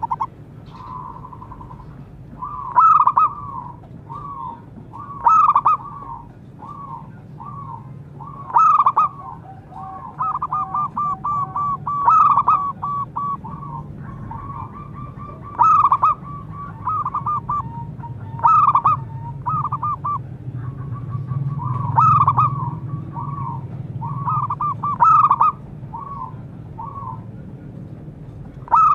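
Zebra dove (perkutut) cooing: repeated phrases of short, rapid staccato coos, each opening with a louder note, coming about every three seconds.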